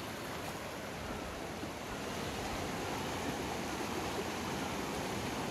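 A small rocky mountain river rushing over boulders and through rapids, giving a steady, even rushing noise.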